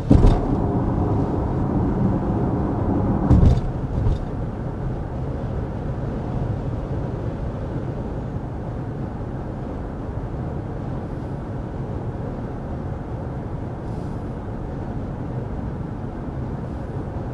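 Steady road and wind noise inside the cabin of a 2024 Genesis GV70 Electrified cruising at 55 mph, with no engine note under it, measured at 50.8 decibels. A few short knocks come in the first four seconds.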